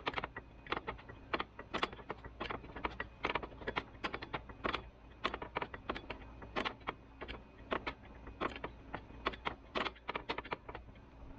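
Wrench working loose the hydraulic hose fitting on a forklift lift cylinder: a steady run of short, sharp, irregular clicks, about three a second.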